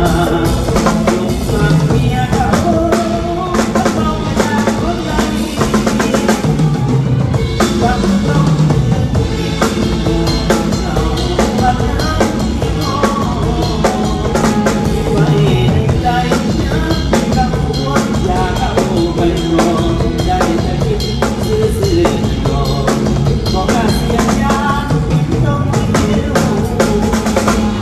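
Live band music with a drum kit (snare, kick and rimshots) under a melodic instrumental line, an instrumental passage with no singing.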